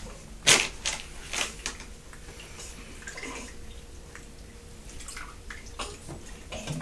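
Bath water splashing and dripping as hands wash a baby in an infant bath tub: a few sharp splashes in the first two seconds, the loudest about half a second in, then softer scattered drips.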